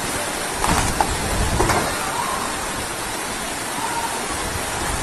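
Floodwater rushing in a torrent down a street, a steady rushing noise with brief louder surges about one and two seconds in.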